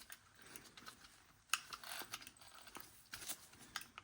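Faint handling clicks and rubbing of a replacement rubber tire being worked onto a Roomba i7 drive wheel, with a sharper click about a second and a half in and a few lighter ones near the end.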